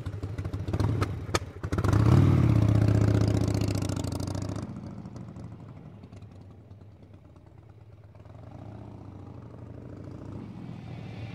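A motorcycle engine: a few sharp clicks, then the engine starts about two seconds in and runs loudly, fades away over the next few seconds, and comes back faintly near the end.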